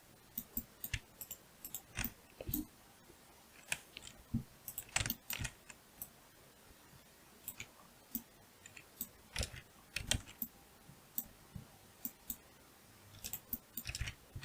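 Computer keyboard keys and mouse buttons clicking irregularly, a few clicks at a time with short pauses between.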